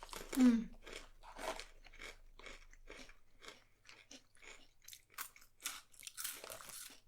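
A person chewing a crunchy snack close to the microphone, with crisp crunches about twice a second and a brief closed-mouth "mm" near the start.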